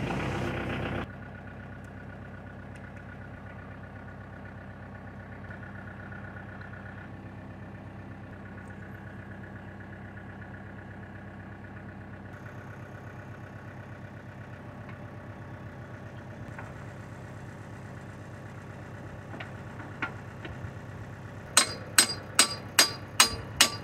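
1994 Kubota L4200 tractor's diesel engine idling steadily while its hydraulics push fluid through newly fitted backhoe hoses. Near the end comes a quick run of about eight loud, sharp metallic clanks.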